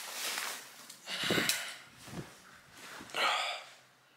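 A man breathing out heavily three times as he lies back on a bed, with the sheets and pillow rustling under him.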